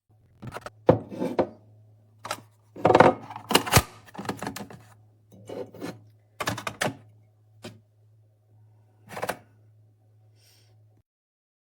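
A run of irregular clicks, knocks and clatters, as of hard objects being handled, over a steady low electrical hum; the hum and the knocks stop about a second before the end.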